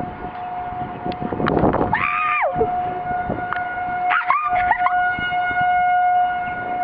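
Outdoor tornado warning siren sounding one steady tone, its higher overtones coming in more strongly about five seconds in. A short falling cry cuts across it about two seconds in and again at around four seconds.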